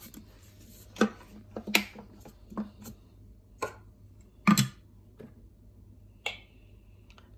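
Scattered hard plastic clicks and knocks as the lid and measuring cup of a Thermomix TM5 are handled and set in place, the loudest about halfway through. Near the end a short, higher tick comes as the touchscreen is pressed.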